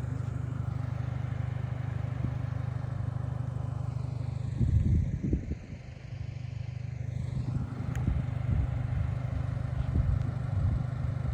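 A 2023 Chevy Colorado Z71's 2.7-litre turbo four-cylinder running steadily at low speed. A few knocks and clunks come about five seconds in, with more scattered ones near the end.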